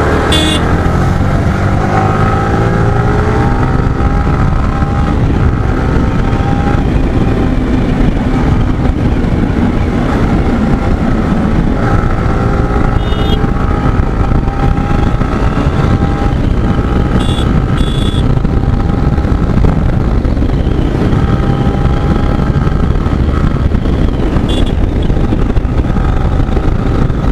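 Motorcycle engine running under way, its pitch rising and falling as it speeds up and shifts, over heavy wind rumble on the microphone. A few short horn beeps sound from time to time.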